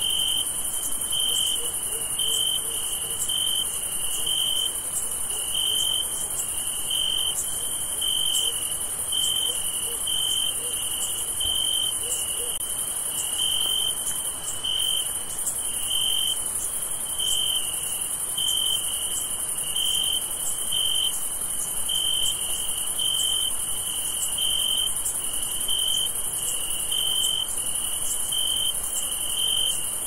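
Night insect chorus: a cricket chirping in short, evenly spaced pulses, a little over once a second, over a steady high-pitched trill of other insects.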